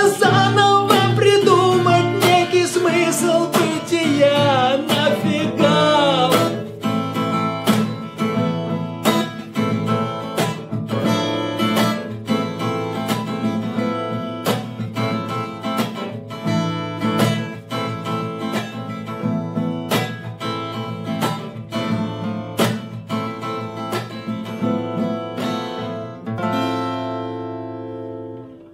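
Acoustic guitar, a Takamine, strummed in a steady rhythm, with a man singing over it for the first few seconds. Near the end a chord is left ringing and dies away.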